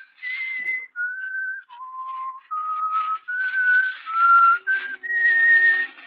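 A person whistling a slow melody of about eight held notes: the opening whistled theme of an old-time radio mystery broadcast. Faint low instrumental notes come in under the last note.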